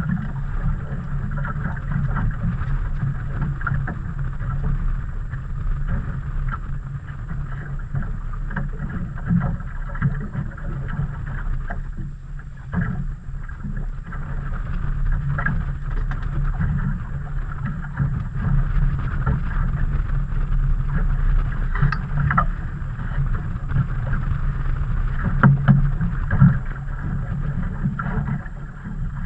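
Steady wind and water noise aboard a small open fishing boat on choppy water, with a few light knocks scattered through.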